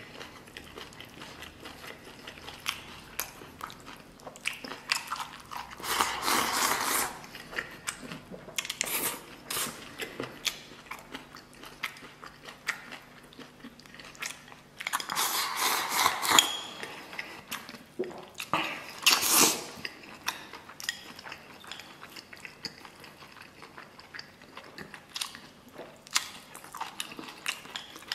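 Close-up wet chewing and lip-smacking of a man eating gelatinous braised cow hoof with rice, a steady run of small smacks and clicks. It grows louder for about a second around six seconds in, again for over a second around fifteen seconds in, and once more briefly near nineteen seconds.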